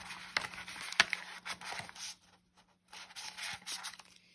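Paper banknotes rustling and rubbing as hands count them and handle a cash envelope. The sound comes in two stretches with a short pause a little over two seconds in, and a sharp snap about a second in.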